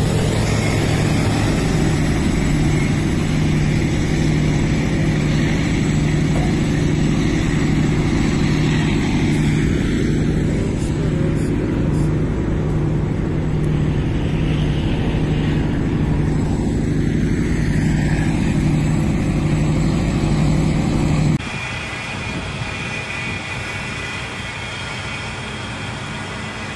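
Diesel engine of a tipper dump truck running steadily with a deep hum while its raised body tips out gravel. About twenty seconds in it cuts abruptly to a quieter, different truck sound.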